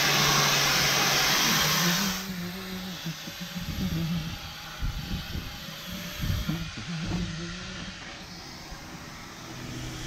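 Angle grinder with a wire brush scouring rust off steel, running with a loud, even hiss that cuts off about two seconds in. After that only quieter, scattered low sounds remain.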